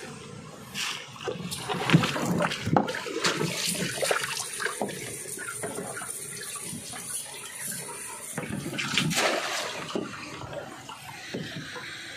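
Water splashing and sloshing in irregular bursts, with a few short knocks, louder about two seconds in and again around nine seconds.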